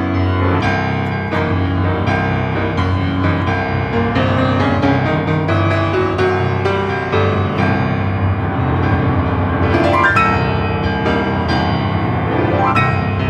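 Grand piano played in a dense run of quick notes over a held low bass. The piano is prepared, with cloths and small objects laid on its strings.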